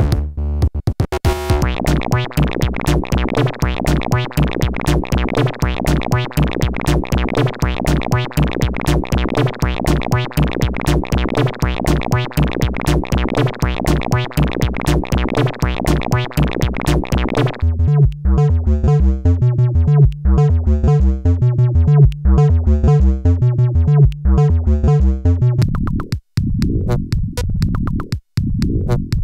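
Experimental electronic music made on synthesizers: fast, evenly repeating electronic pulses. About two-thirds of the way through, the bright upper layer drops away, leaving a heavier bass pulse under a warbling mid-range line, and near the end the sound breaks with short gaps.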